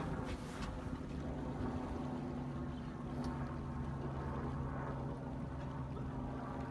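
Coach boat's engine running at a steady low speed, a constant hum, with wind and water noise over it and a few light splashes or knocks.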